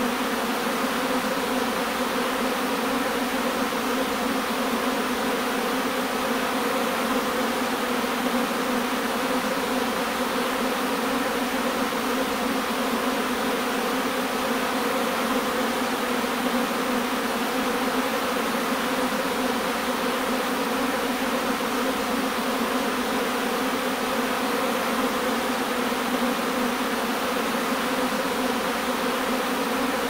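A swarm of honeybees buzzing: a steady, dense drone of many wingbeats that holds even throughout, with no break or change.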